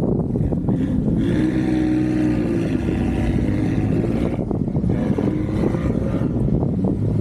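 A motor vehicle's engine revving, its pitch rising and falling, then again more briefly about five seconds in, over a steady low rumble.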